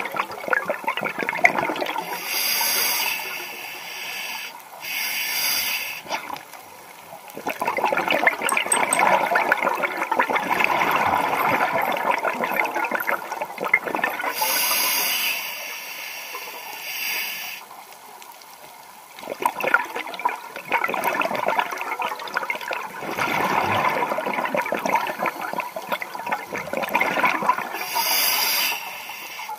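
Scuba diver breathing through a regulator underwater, heard from close by: a brief hissing inhale, then a long gurgling rush of exhaled bubbles. The slow breaths repeat several times, each cycle lasting many seconds.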